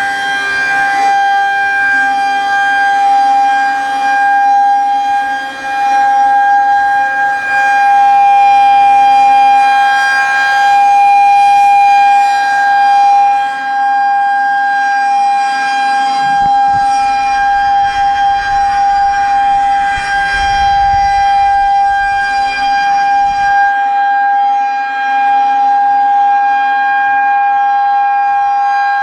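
Federal Signal 2001-130 rotating outdoor warning siren sounding its steady alert tone at one unchanging pitch, loudness gently swelling and fading as the horn turns. Wind rumbles on the microphone for several seconds past the middle.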